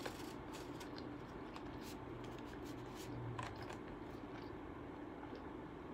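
Close-up chewing of a sushi roll, with short faint wet clicks scattered through, over a low steady hum.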